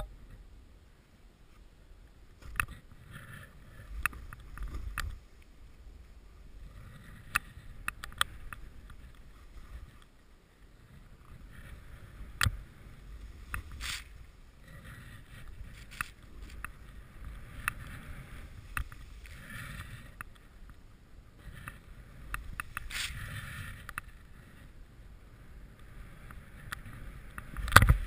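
Snowboard sliding and turning through deep powder snow, a soft hissing swish that swells and fades with each turn, with wind on the microphone. Occasional sharp knocks are heard, the loudest near the end.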